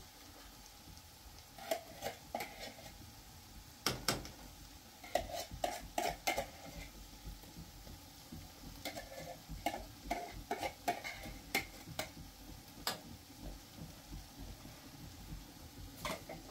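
A metal spoon stirring diced potatoes in a frying pan, scraping and clinking against the pan in three short bouts with a few single knocks, over the low sizzle of the frying.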